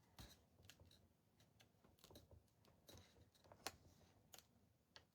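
Faint, irregular little clicks and scratches of a transfer sheet being rubbed and peeled off a painted cutting board, catching on sticky, not-quite-dry Mod Podge.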